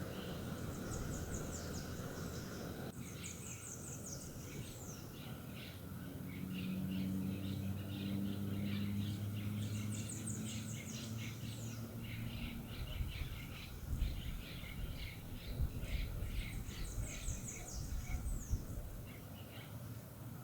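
Birds singing and chirping outdoors: a high, quick song phrase recurs about four times over a busy stream of rapid chirps. A low steady hum comes in for several seconds in the middle.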